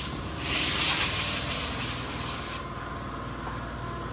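Compressed air hissing from a shop air hose in one steady blast of about two and a half seconds, then cutting off.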